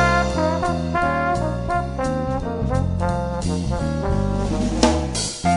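Background music: a jazzy brass tune with trombone and trumpet over a walking bass line.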